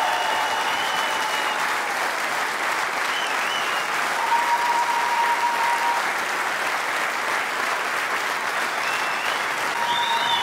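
A large theatre audience applauding steadily, with voices in the crowd and a few thin whistle-like tones over the clapping.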